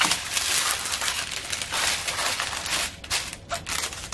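Small plastic bags of diamond-painting drills crinkling and rustling as they are handled, thinning to a few separate crackles near the end.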